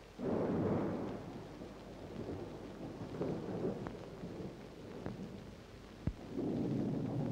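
Thunder rumbling in rolls: a sudden loud clap just after the start that dies away over about a second, further rolls a few seconds in, and another swelling near the end, with a sharp click just before it.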